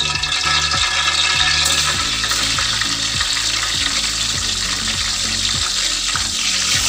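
Hot cooking oil sizzling in a pot with ground spices just added to it, a steady hiss.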